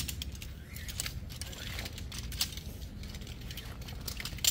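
Irregular light clicks and clatter of camping gear being handled while a tent is pitched, over a low steady rumble.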